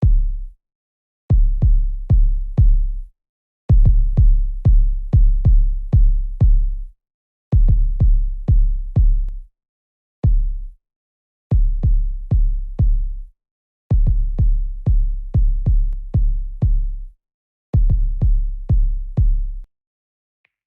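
Soloed drum-machine kick drum from a hip-hop track: deep, booming hits with a sharp click on each, about two and a half a second, played in groups of two to six with short silent gaps between them. The hits stop shortly before the end.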